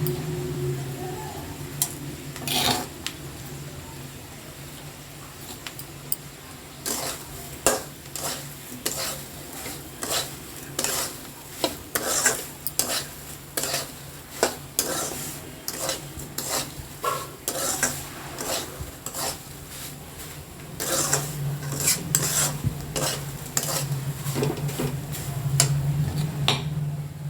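A spatula stirring semolina upma in a metal kadai, scraping and knocking against the pan in quick repeated strokes, over a steady low hum.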